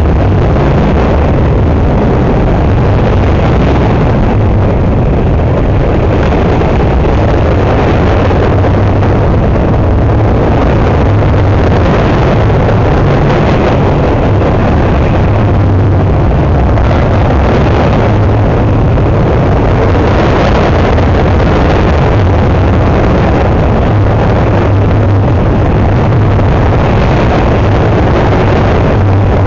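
A train passing close by: a loud, steady rumble with a constant rushing noise that holds level throughout.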